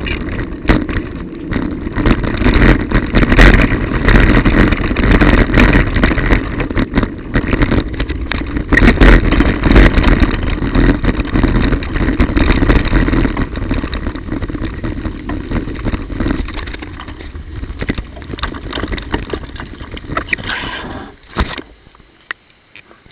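Bicycle riding over a wet, broken road surface as heard from the bike itself: loud, steady rumble and hiss of tyres and wind, with frequent rattling knocks from bumps and potholes. The noise cuts off sharply a little before the end.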